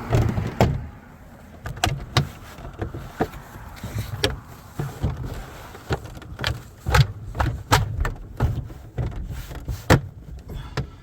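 Plastic interior trim panel of a 2015 Tesla Model S being pressed and knocked back into its clips by hand: a string of irregular knocks, taps and clicks with dull thuds, the loudest about seven and ten seconds in.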